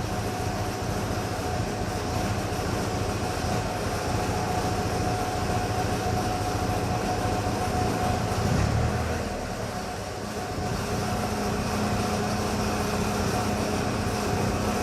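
Armstrong Siddeley AS2 two-cylinder air-cooled diesel engine running steadily, with a steady high whine over its low beat.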